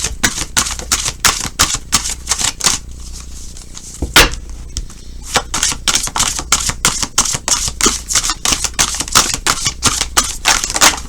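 A tarot deck being shuffled by hand: a rapid run of card snaps and flicks, with a short lull about three seconds in and a sharper knock just after four seconds.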